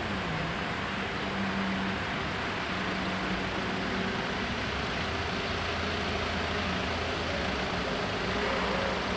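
Road vehicle engines running steadily over a haze of traffic noise, with a low hum that dips in pitch and comes back just after the start.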